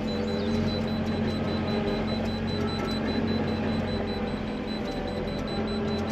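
Manitou telehandler's diesel engine running steadily as it drives under a heavy load, heard from inside the cab. A repeated high-pitched beep sounds throughout: the machine's warning that the log is near the limit of what it can carry.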